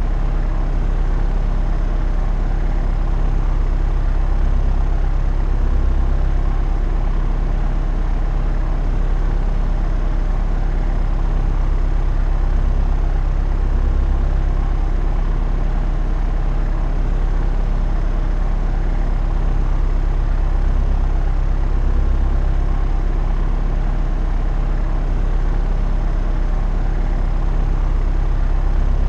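Propeller aircraft engine and propeller droning steadily in cruise flight, a constant low hum with no change in pitch.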